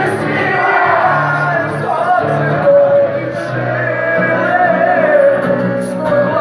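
Live rock music: a band playing with a voice singing a held, wavering melody over steady bass notes, with the echo of a large hall.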